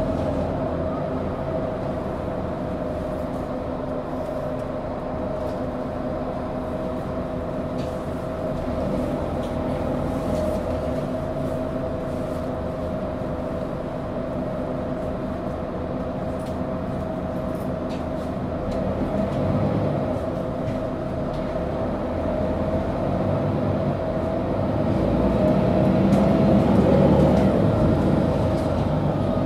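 Mercedes-Benz O530G Citaro articulated bus heard from inside on the move: its engine and drivetrain run with a steady whine over road rumble. The sound swells louder near the end as the bus pulls harder, then eases off.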